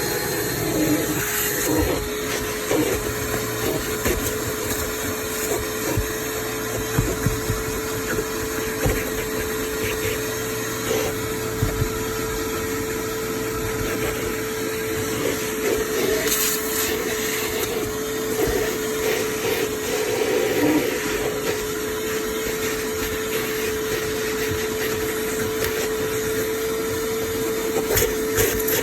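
Ridgid WD0319 cordless 3-gallon wet/dry vacuum running steadily, its motor giving a constant even whine over the rush of air, with a few short knocks along the way.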